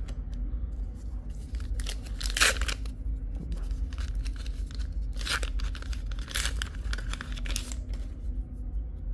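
Paper trading-card booster pack wrapper being torn open and crinkled, in several short rips. The loudest comes about two seconds in, with more between about five and seven and a half seconds in.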